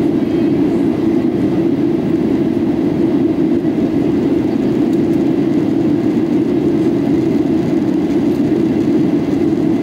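Steady cabin noise inside a Boeing 737-800 in flight: the even, low rush of the jet engines and airflow, with no change across the stretch.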